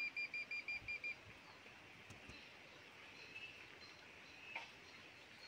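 Handheld satellite finder meter beeping fast, about five high beeps a second: the tone it gives while picking up a satellite's signal as the dish's LNB is aimed. The beeping stops about a second in, leaving faint bird chirps.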